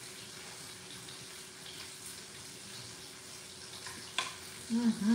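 Steak frying in a pan, a steady sizzle, with a sharp click about four seconds in and a short hummed voice near the end.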